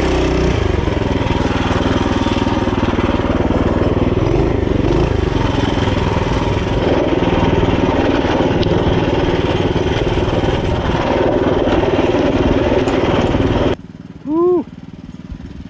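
Mini bike's small single-cylinder engine running hard under load on a rocky trail climb, heard from the rider's seat. Near the end it cuts off abruptly to a quieter, more distant engine and a brief rising-and-falling tone.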